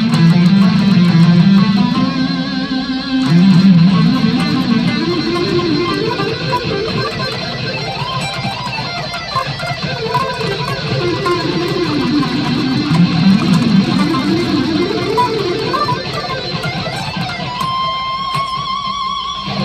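Electric guitar picked with a yellow .73 mm Dunlop Tortex pick, playing fast single-note lead lines that climb and fall in pitch, ending on a held high note near the end.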